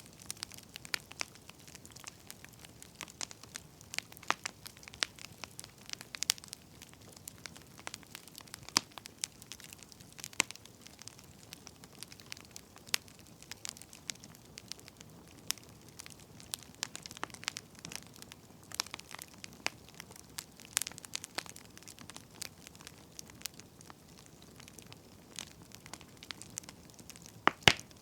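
Wood fire burning, the logs crackling with irregular sharp pops over a faint low hiss; one louder pop near the end.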